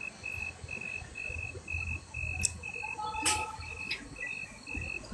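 A cricket chirping in a steady rhythm, about two short high-pitched chirps a second on one tone. A couple of faint clicks come in the middle.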